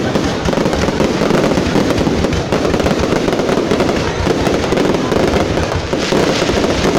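Fireworks display: a dense, continuous run of bangs and crackling with no break between them.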